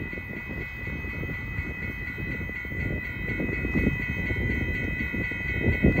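Railroad grade-crossing warning bell ringing rapidly and steadily, over heavy wind buffeting the microphone that swells into louder gusts near the end.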